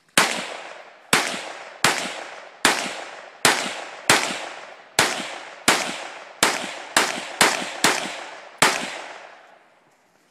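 AR-15-style rifle fired in a string of about thirteen semi-automatic shots. They come roughly a second apart at first and quicken to about half a second apart near the end, each shot trailing off in a long echo.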